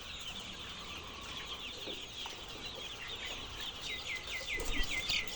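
A flock of chickens calling: a dense chorus of short, high, falling chirps that grows more distinct toward the end.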